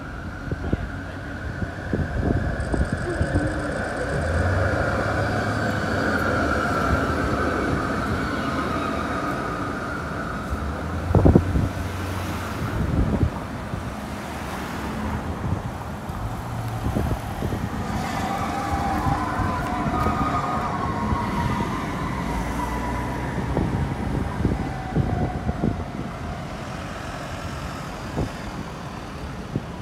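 Road traffic passing along a city street. A whining tone rises and falls twice, and a sharp knock sounds about eleven seconds in.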